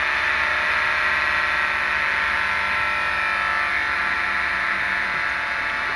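Steady electrical buzzing made of many held tones, at an even level throughout.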